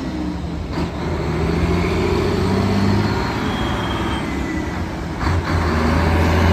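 A motor vehicle's engine running steadily, with a low hum under a dense rumble.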